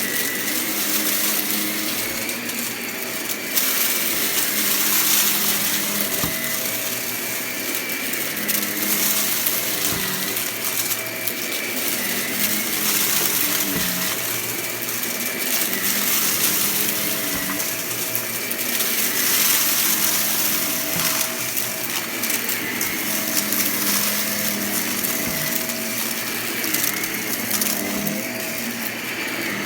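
Vacuum cleaner running steadily, its motor swelling and dipping every few seconds as it is pushed back and forth, with scattered crackles of crunchy debris being sucked up.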